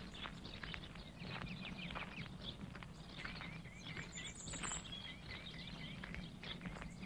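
Footsteps about twice a second with birds chirping, including two quick runs of small chirps near the middle, over a low steady hum of outdoor ambience.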